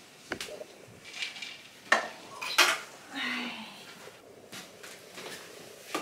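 Makeup compacts, palettes and small cosmetic containers knocking and clicking as they are picked up and set down on a table, with a few sharp clicks, the loudest about two seconds in and again just after.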